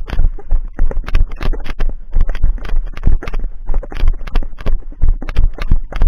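Fast, uneven footsteps, about five or six a second, thudding on forest ground as someone moves quickly on foot, over a deep rumble of wind and handling on the microphone.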